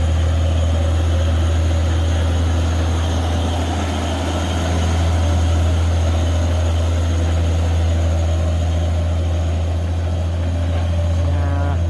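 Diesel engine of a loaded three-axle truck running as it pulls past, a steady deep drone that eases slightly about four seconds in and then builds again.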